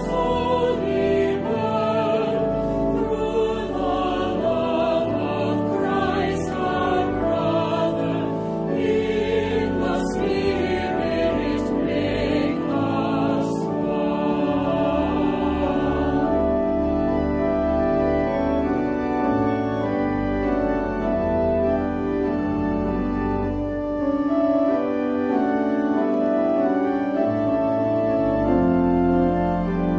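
A choir singing a hymn over organ accompaniment. About halfway through the voices stop and the organ plays on alone in long held chords.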